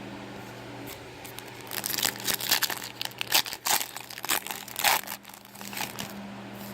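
Foil trading-card pack wrapper being torn open and crinkled: a run of sharp crackles lasting about three seconds, over a steady low hum.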